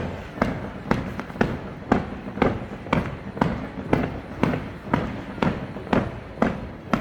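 Fireworks going off in a steady barrage, about two sharp bangs a second at an even pace.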